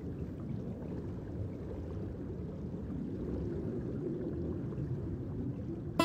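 Steady, low rushing wash of underwater ambience: even water noise with no distinct events.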